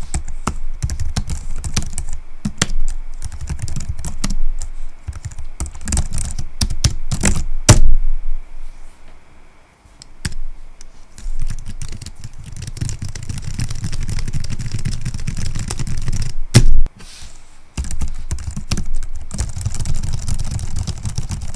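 Steady typing on a thin pantograph (scissor-switch) keyboard: a dense run of soft key clicks with a few heavier strokes, broken by short pauses about ten seconds in and again around seventeen seconds.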